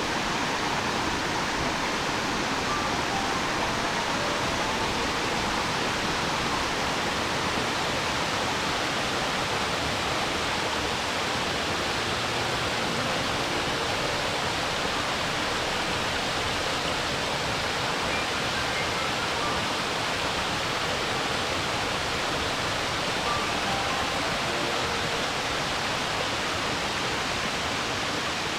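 Mountain waterfall in a stream gorge, falling water rushing steadily and evenly without a break.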